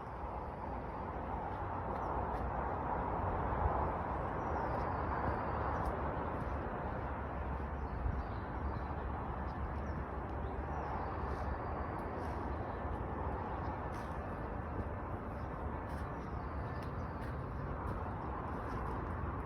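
Steady wind rumble on the microphone with a rushing hiss, and faint bird calls chirping over it now and then.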